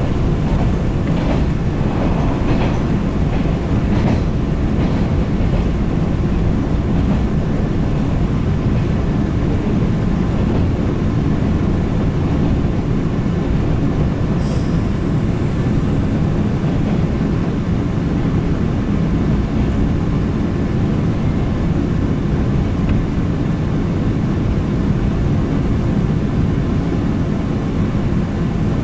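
Inside a JR West 113 series electric train: the steady rumble of wheels and running gear on the rails as it pulls into a station, with a few rail-joint clicks near the start and a brief high squeal about halfway.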